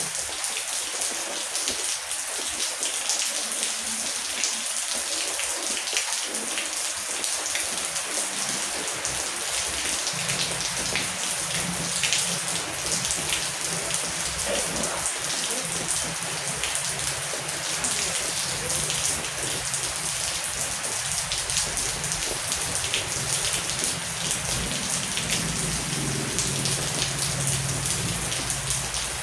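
Heavy rain falling steadily, a dense patter of many drops. A low rumble comes in underneath about ten seconds in and carries on.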